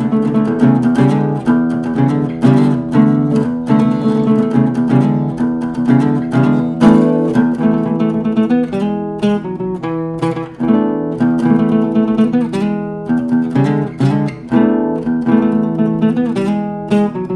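Solo cutaway acoustic guitar played by hand, a run of plucked notes and chords with frequent sharp attacks, at a steady fairly loud level.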